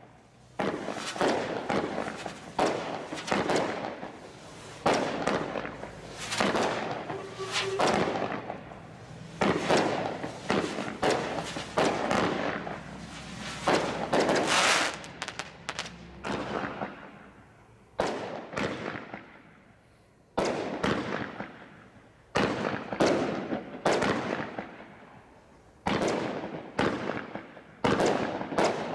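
Consumer barrage fireworks from the Bright Star Desert Storm Crate Barrage Pack firing in a series of bangs, one every second or two, each followed by fading crackle, with a longer hissing stretch near the middle.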